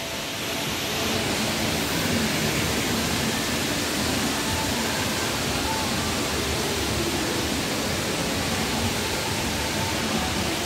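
A steady, even rushing noise that holds at one level throughout.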